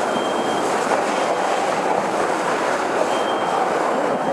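Fire hose nozzle flowing water: a steady, loud rushing hiss of the stream.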